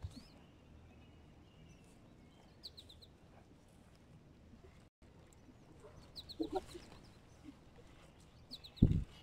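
A small bird calling in short series of three or four quick, high, falling chirps, repeated every few seconds, over soft crumbling and rustling of hands working loose soil. A dull thump just before the end is the loudest sound.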